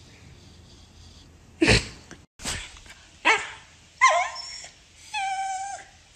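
Small dog barking about four times, short and sharp, then giving a longer, steady-pitched whine near the end.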